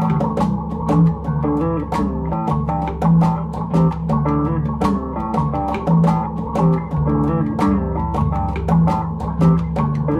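Background music: a guitar and bass guitar tune over a steady drum beat.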